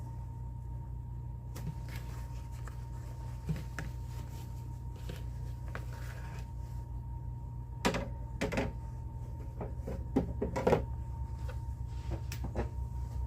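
Scattered handling noises, a few short clicks and knocks, bunched about eight seconds in and again around ten to eleven seconds. Under them runs a steady low electrical hum with a faint steady high tone.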